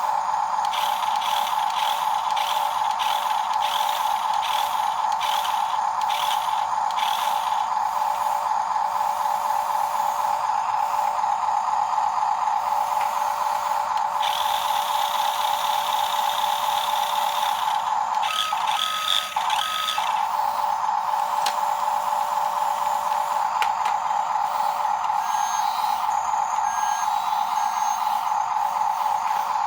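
Electric motors and plastic or metal gearboxes of radio-controlled model vehicles whining steadily under power, with a brighter whirring layered on and off. Near the middle it briefly changes pitch, as if the load or throttle shifts.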